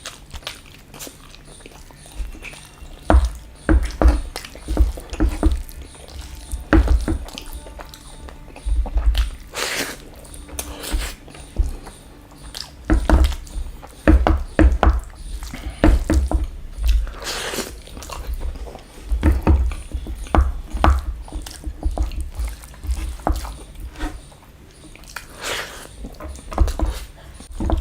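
A person chewing and biting food close to the microphone, in irregular runs of short wet clicks and mouth noises with brief pauses between mouthfuls.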